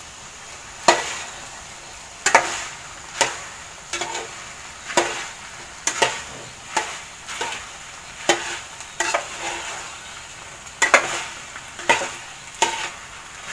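A metal spoon stirs small rice-flour balls in a metal pot, knocking and scraping against the pot about once a second. Under it is a steady sizzle as the last of the cooking water boils off.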